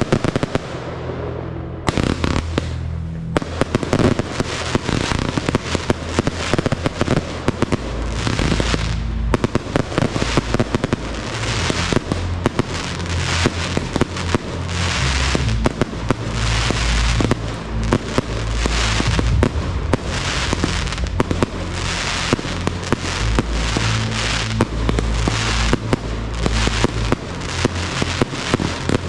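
Fireworks display: a dense, almost continuous run of bangs and crackling from aerial shells bursting, thickening after about two seconds, with music underneath.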